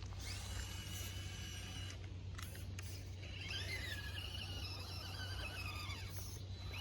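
Small RC crawler's electric motor and gears whining in two spells, the pitch rising and wavering with the throttle as it climbs over rocks.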